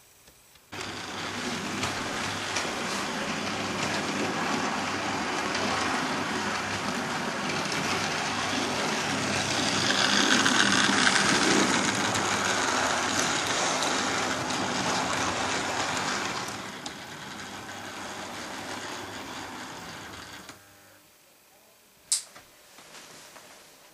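OO gauge model train running along the track: the whir of its small electric motor and its wheels on the rails. It starts suddenly about a second in, is loudest about ten to twelve seconds in as it passes close by, then dies down and stops about twenty seconds in. One sharp click near the end.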